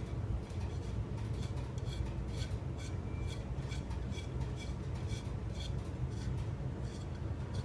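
Light metallic clicks and ticks, a few a second, from an Allen key turning a small bolt out of an aluminum handlebar mount, over a steady low hum.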